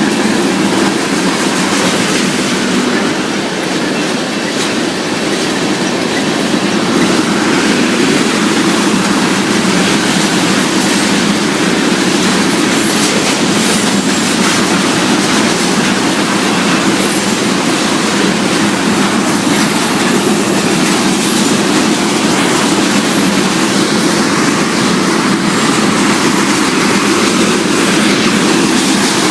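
Crude oil tank cars of a freight train rolling steadily past on the rails, a continuous loud rumble of wheels on track, with a faint high wheel squeal now and then around the middle.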